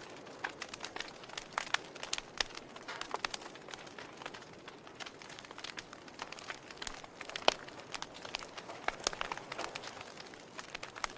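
Wood fire burning, crackling with irregular sharp pops and snaps over a soft hiss; one louder pop about seven and a half seconds in.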